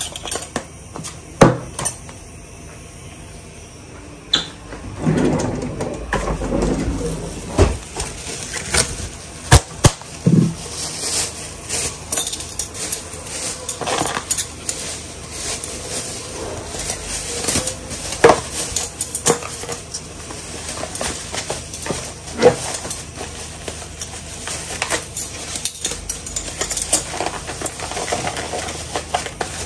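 Metal fork and spoon clinking and scraping against a plastic food tub, in irregular sharp knocks, with a thin plastic bag rustling as food is spooned into it.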